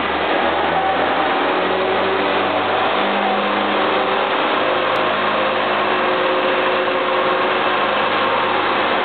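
Turbocharged Honda B18B1 four-cylinder engine, boosted to 12 psi, running hard on a chassis dynamometer during a power run. Its revs climb steadily through the pull.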